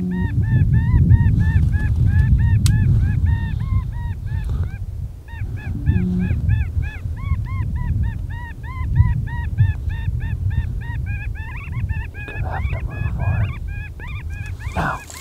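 A flock of geese honking, many short calls overlapping continuously, over a loud low rumble of wind on the microphone.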